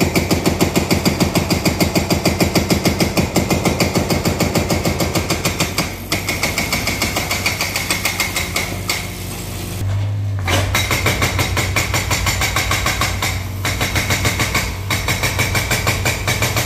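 Excavator-mounted hydraulic breaker hammering a reinforced concrete roof slab: a fast run of loud blows, several a second, over the excavator's steady engine hum, stopping briefly a few times.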